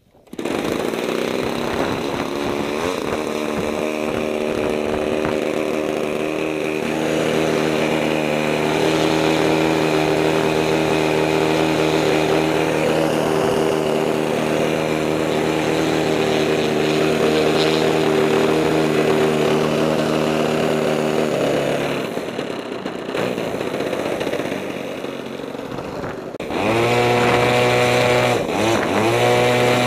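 RC model airplane's motor and propeller starting up and running steadily at one pitch, dropping back about twenty-one seconds in, then revved up several times in quick rising blips near the end.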